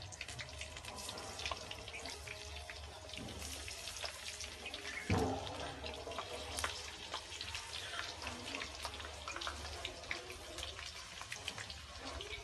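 Stuffed okra frying in hot oil in a steel kadhai: a steady sizzle with dense crackling. There is a louder knock about five seconds in.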